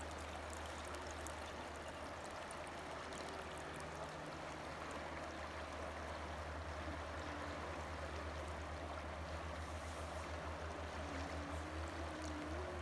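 Water running and trickling steadily over wet sand.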